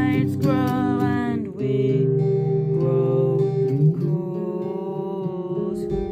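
Acoustic guitar playing, with a long sung note held over it that dies away about a second and a half in, leaving the guitar alone.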